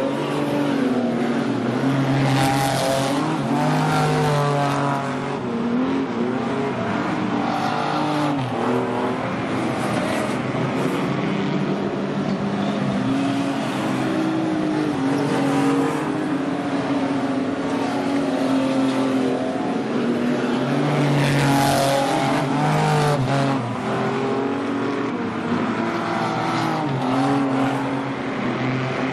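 Superstock race cars' V8 engines running together on a dirt oval, several overlapping engine notes rising and falling as the cars accelerate down the straights and back off into the turns.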